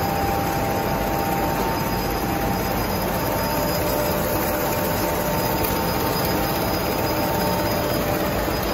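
Inline flexo printing machine running, a steady mechanical whir with a couple of faint steady whining tones over it.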